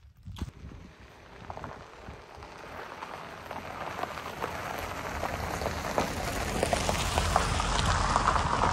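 Tyres of a 2017 Hyundai Tucson SUV crunching over a gravel road, a crackling patter that grows steadily louder as the car approaches and passes close by near the end.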